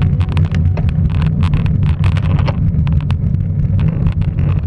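Wind buffeting the microphone of a camera on a moving bicycle, with irregular sharp rattling clicks as the bike rolls over rough, cracked pavement.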